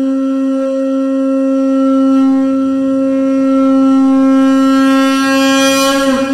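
Conch shell (shankh) blown in one long, steady note, wavering and dipping slightly in pitch near the end.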